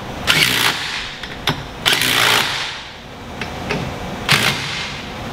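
Cordless impact driver hammering in three short bursts, snugging bolts down.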